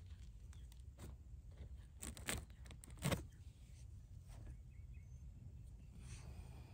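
Faint scraping and tapping of a planting stick poking sprouts into holes in woven landscape fabric, with two sharper scrapes about two and three seconds in, over a low rumble of wind on the microphone.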